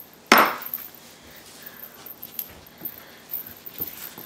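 A spatula mixing wheat flour dough in a bowl: one sharp knock against the bowl about a third of a second in, then faint scattered taps and scrapes.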